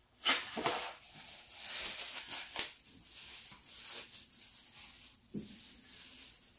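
Dry rustling and crinkling of green flattened rice flakes (cốm dẹp) being handled in their plastic packs and a bowl for mixing. A few sharper crackles stand out, the loudest about two and a half seconds in.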